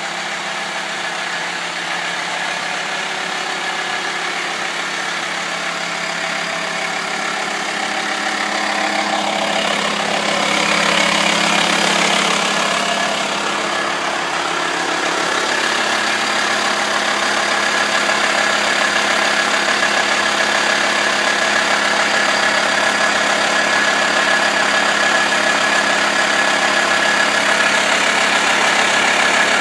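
Volkswagen T5 Transporter's 2.5 TDI five-cylinder diesel running steadily, getting a little louder about ten seconds in. A steady high whine sits over it in the second half.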